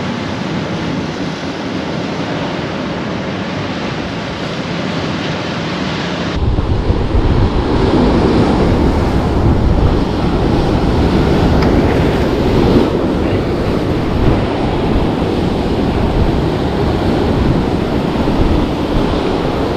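Sea surf washing and surging between coastal rocks, a steady rushing wash. About six seconds in it turns abruptly louder and deeper, with wind buffeting the microphone.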